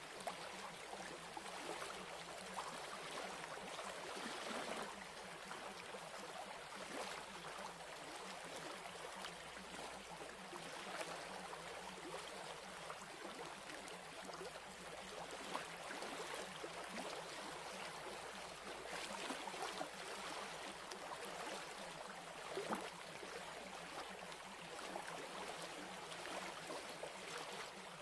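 Steady, quiet rushing noise like running water, even throughout, with no melody or voice.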